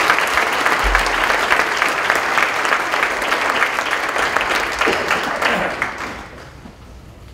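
Audience applauding, a dense patter of many hands clapping that fades away about six seconds in.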